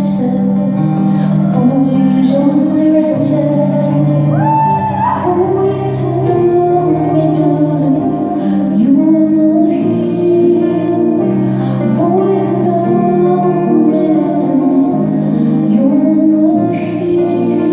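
Live concert music picked up on a phone's microphone in the audience: a woman singing over long held chords that change every second or two.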